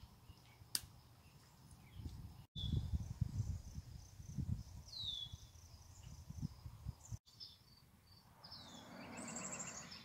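Wild birds calling outdoors: short falling whistles and high chirps, over a low rumble through the middle. Near the end comes a louder, rapidly pulsed call.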